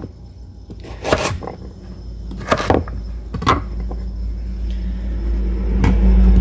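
A knife chopping through carrots on a wooden cutting board: a few sharp chops about a second apart, over a low rumble that grows toward the end.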